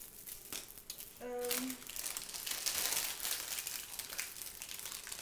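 Crinkling and rustling of plastic packaging handled by hand, a dense run of irregular crackles that picks up about two seconds in.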